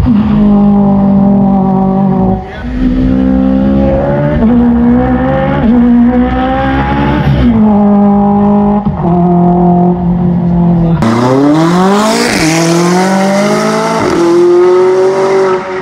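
A man imitating a revving car engine with his mouth through a PA microphone, the pitch climbing and falling back several times like upshifts. About eleven seconds in it gives way to a real car accelerating hard, its engine pitch climbing through the gears.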